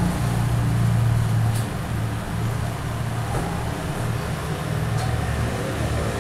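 Hot-air rework station blowing through its nozzle to heat a chip on a phone's circuit board: a steady low fan hum with a rush of air.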